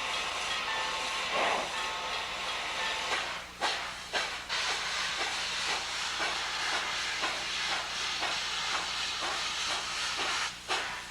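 Steam locomotive: a steady hiss of escaping steam, then from about three seconds in, sharp exhaust chuffs, a few loud ones first and then a steady beat of about two a second.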